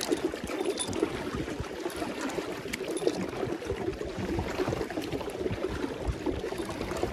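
Water gurgling and lapping around a kayak, a steady crackle of many small splashes.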